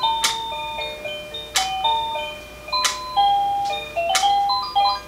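Engstler quartz cuckoo clock playing its electronic melody, a simple chime-like tune of clear single notes. Four sharp clicks come at even spacing, about one every 1.3 seconds. The tune stops right at the end.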